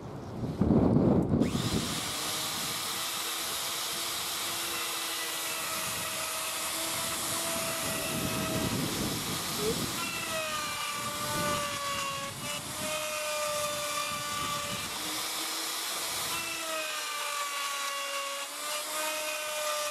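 Electric plunge router switched on about a second and a half in, then running under load as its bit cuts a stopped housing trench in a softwood board: a steady high whine and hiss whose pitch wavers slightly as the cutter bites.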